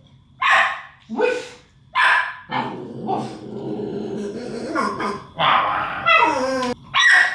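Staffordshire bull terrier puppy barking: three short yappy barks, then a few seconds of low grumbling growl, a long whining cry that falls in pitch, and one more bark near the end.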